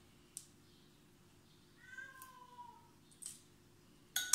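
A short meow-like cry lasting about a second, gliding slightly down, about two seconds in; near the end, a metal spoon clinks sharply against a ceramic bowl.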